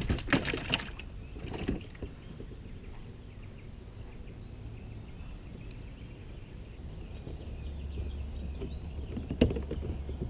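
Water splashing at the side of a fishing kayak for the first couple of seconds, then low water noise around the hull with faint birds chirping. A single sharp knock comes near the end.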